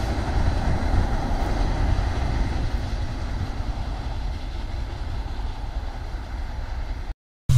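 Bangladesh Railway passenger train rumbling away along the track, slowly fading as it recedes; the sound cuts out abruptly near the end.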